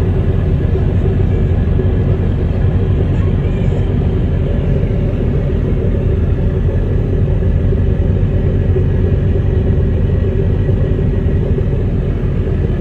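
A boat's engine running with a steady low rumble and a faint, even hum above it.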